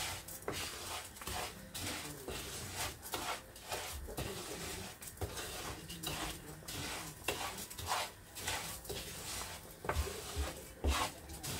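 Wooden spatula stirring and scraping raw rice around a skillet in repeated strokes. The rice is being toasted in oil and salt before the water is added.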